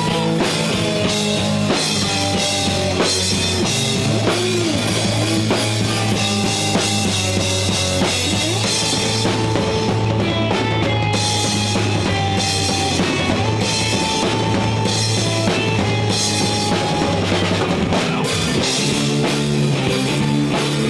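Rock band playing a song: electric guitars over a steady drum-kit beat.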